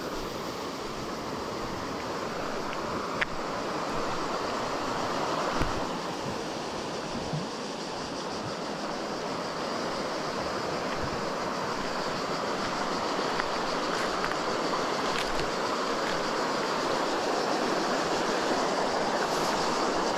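River water rushing steadily, growing slightly louder, with a couple of short clicks a few seconds in.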